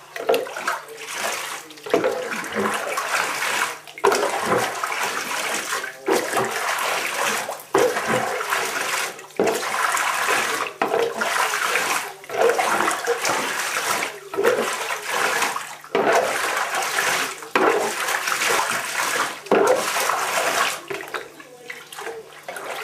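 Bath water splashing in a bathtub as a hand scoops and sweeps it over a wet cat, in repeated surges about every one and a half to two seconds. The splashing dies down near the end.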